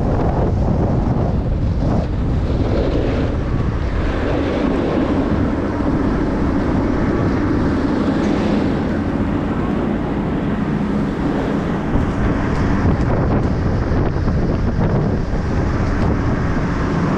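Steady loud rushing of wind buffeting the microphone, with a faint low hum underneath from about four seconds in.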